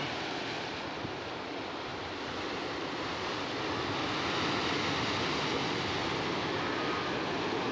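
Sea surf: waves breaking and washing over shoreline rocks and concrete tetrapods in a steady rush, a little louder from about halfway through.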